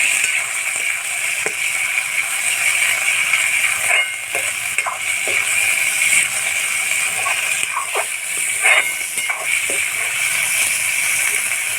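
Chopped meat sizzling in hot oil in a kadai, a steady loud hiss, with scattered clicks and scrapes of a spatula against the pan.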